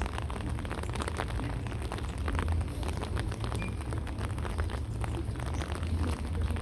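Wind noise on the microphone: a steady low rumble with scattered crackles and clicks.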